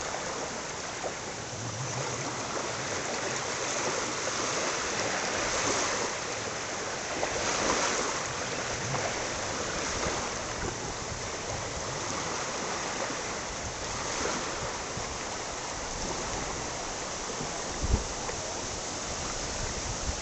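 Seawater washing and trickling around a rocky tidepool, a steady rushing that swells every few seconds, with a brief low thump near the end.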